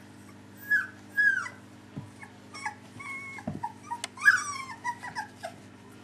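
Three-week-old Dalmatian puppy whimpering: high-pitched squeaks and whines that slide up and down in pitch. Two short ones come about a second in, then a quicker string through the middle and latter part, loudest a little after four seconds.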